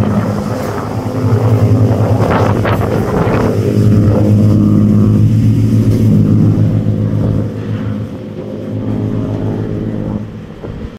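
Pilot boat's engine running steadily at speed, with water splashing against its hull and wake about two to three seconds in. The engine fades near the end as the boat pulls away.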